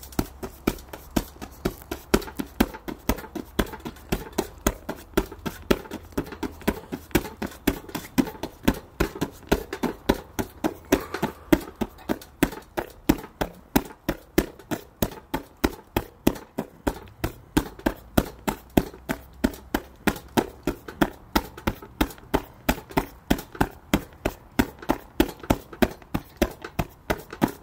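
Gloved punches thudding into an Everlast heavy punching bag in a fast, steady flurry of about three blows a second, kept up without a break.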